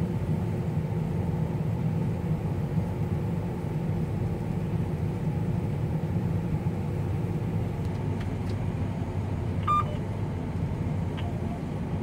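Combine's engine and machinery running steadily, heard from inside the cab while its unloading auger empties barley into a grain cart. A short electronic beep sounds near the end.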